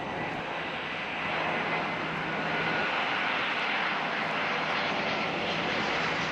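CFM56 jet engines of an Airbus A319-112 on landing approach with gear down, a wide rushing engine noise growing louder over the first couple of seconds as the airliner nears, then holding steady, with a faint high whine running through it.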